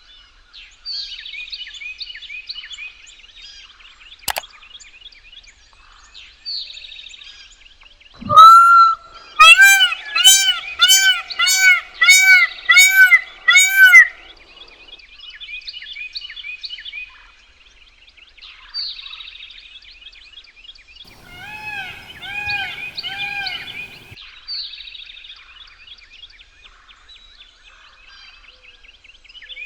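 Blue peacock (Indian peafowl) calling: a loud series of about eight repeated honking calls, then a few seconds later a second, quieter series of about five. Small birds chirp and sing high-pitched throughout.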